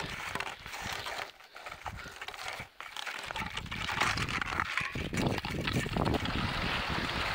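Snow hissing and scraping under a person glissading down a steep snowfield, with wind rumbling on the microphone from about three seconds in.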